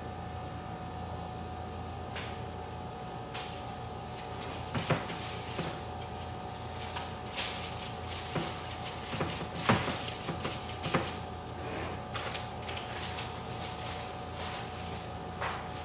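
Scattered clicks, knocks and clinks of containers and utensils being handled on a kitchen counter, louder and more frequent toward the middle, over a steady electrical hum.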